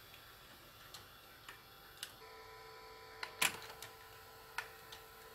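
Victor BR-8600 VHS deck's tape transport stopping and unloading the cassette for eject: a few soft mechanical clicks and a louder clack about three and a half seconds in, over a faint steady hum that starts about two seconds in.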